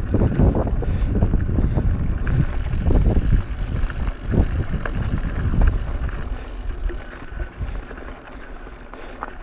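Wind rumbling on the microphone while a bicycle rolls over a rocky dirt trail, with frequent knocks and rattles from the tyres and bike. It gets quieter from about six seconds in.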